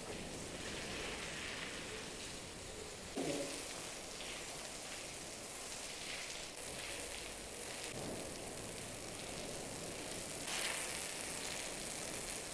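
Water from a garden hose spraying and splashing onto a wet concrete floor, a steady hiss of splashing water. It turns briefly louder about three seconds in and again toward the end.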